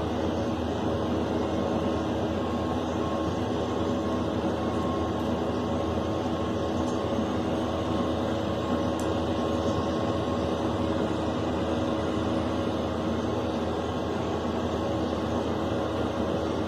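Tractor and haybine (mower-conditioner) running steadily while cutting standing wheat, heard from inside the tractor cab. An even mechanical drone with a steady hum and no change in pace.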